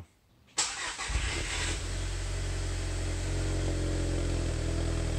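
Cold start of an Audi A4's 2.0-litre turbocharged four-cylinder petrol engine, heard at the exhaust tailpipes: the starter cranks briefly about half a second in, the engine catches, and by about two seconds in it has settled into a steady cold idle.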